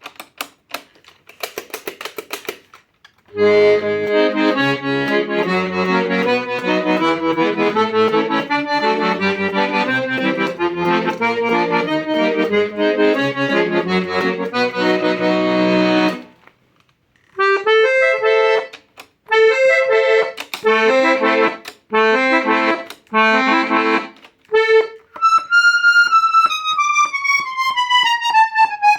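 A Klingenthal accordion being played: a sustained passage of melody over bass and chord accompaniment, then short detached chords after a brief pause. Near the end comes a long falling run of notes.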